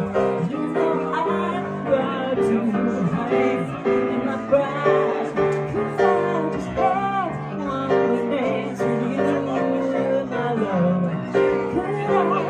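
Live grand piano accompanying a woman singing into a microphone, her held notes wavering in pitch.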